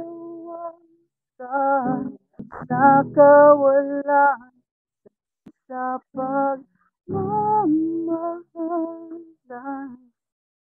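A voice singing a slow melody in short phrases with brief pauses. It sounds thin and muffled, with the high end cut off, as over a video-chat connection.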